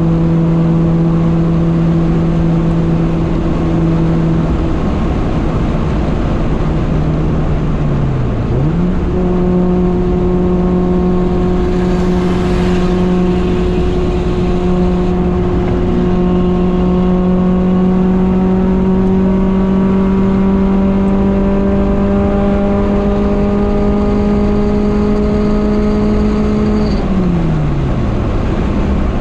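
Honda Civic Nouva's engine heard from inside the car at highway speed over road and wind noise. About eight seconds in the revs dip and then jump up on a downshift to fourth. They climb slowly under acceleration, then drop sharply near the end on the shift back up to fifth.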